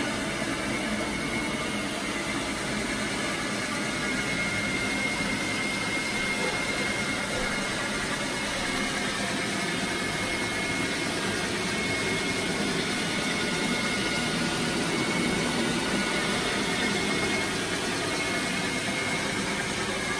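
Rotary hot-water carpet extraction tool working across carpet on its vacuum hose: a steady rushing suction noise with a thin, high whistle running through it.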